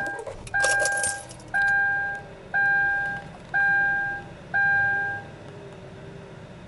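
A 2013 Kia Rio's seat belt warning chime dings about once a second, a steady two-tone ding repeated five times, then stops. The owner puts this down to a seat belt sensor issue. Underneath, the engine idles with a faint low hum.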